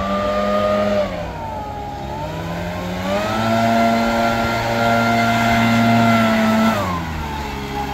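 Handheld leaf blower running at speed to clear a concrete walk. Its pitch drops about a second in, climbs back around three seconds, and drops again near the end as the motor is slowed and sped up.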